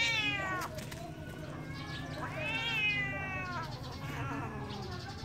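Young ginger kitten meowing in long, drawn-out cries while a dog noses and mouths it. One cry falls away about half a second in, a longer one comes about two seconds in, and fainter ones follow.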